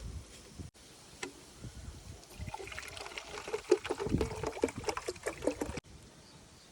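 Water trickling and splashing in a quick run of small splashes, building up from about two and a half seconds in and stopping suddenly near the end.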